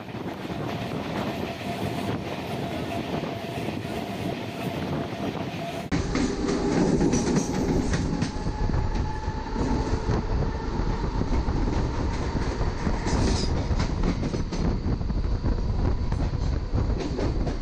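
Passenger train running at speed, heard from an open coach door: wheels rumbling and clattering on the rails, with rushing air. It is louder from about six seconds in.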